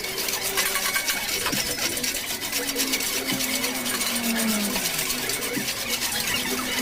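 Chain pulley hoist (katrol) rattling, with rapid continuous clicking as the chain runs through it and short squeaks, while lifting the machine.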